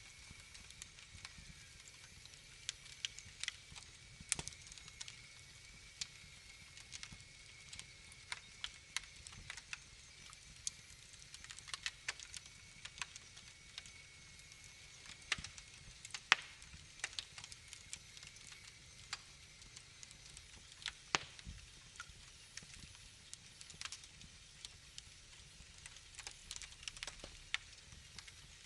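Wood fire crackling in a fireplace: irregular sharp pops and snaps, a few louder than the rest, over a faint hiss.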